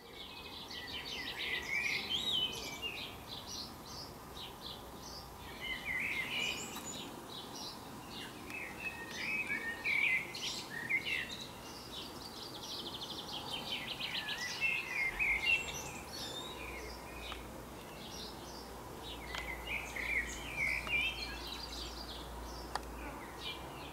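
Songbirds singing, short warbling and chirping phrases every few seconds with pauses between, over faint steady background hiss.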